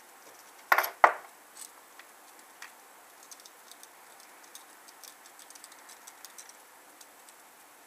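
Precision Torx T6 screwdriver backing small screws out of a BlackBerry Pearl's plastic housing: two sharp clicks about a second in, then faint scattered ticks as the screwdriver turns.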